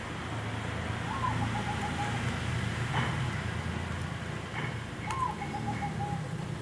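A steady low rumble of background traffic, with a bird calling twice about four seconds apart; each call is a short rising-and-falling note running into a quick trill. A few faint clicks sound between the calls.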